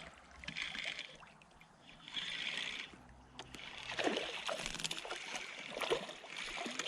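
Water splashing and sloshing in bursts as a small hooked bass is reeled in on a spinning rod.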